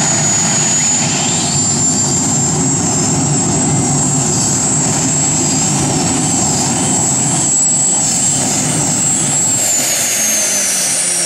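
Twin gas-turbine engines of a pulling tractor running at full power under load during a pull. Their high whine holds steady over a loud rushing roar, wavers briefly, then drops in pitch near the end as the turbines spool down.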